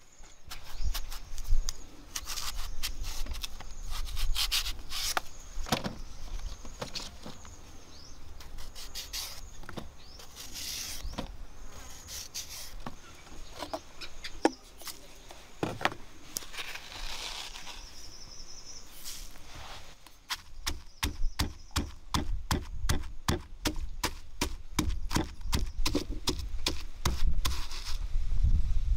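Irregular clinks, taps and scrapes of jars and utensils on a wooden table over a steady high insect drone. From about two thirds of the way in, a stone pestle pounds chilli paste in a stone mortar: an even run of dull thuds, several a second, to the end.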